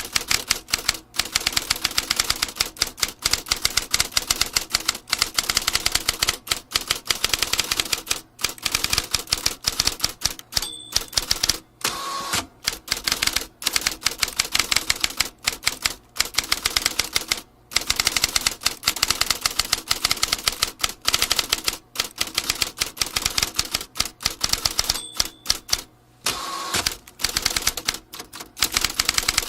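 Vintage typewriter being typed on fast, its keys striking in a dense clatter with brief pauses. The margin bell rings twice, about eleven seconds in and again near twenty-five seconds, each time followed shortly by the carriage being returned.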